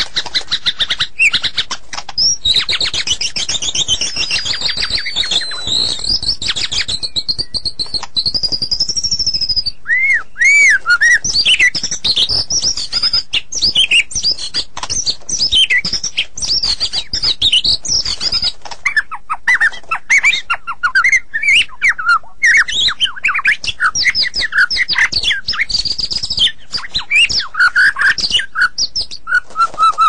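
White-rumped shama (murai batu) singing continuously: a long, varied song of quick chirps, rapid rattling notes and clear whistles that sweep up and down in pitch.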